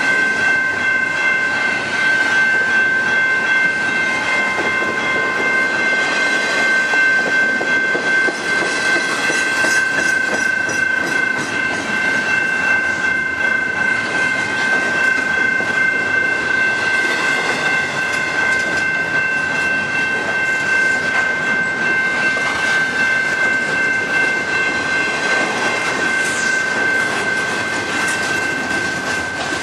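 Double-stack intermodal container cars of a freight train rolling past, a steady rumble with wheels clattering over the rails. A steady high-pitched ringing tone sounds over it.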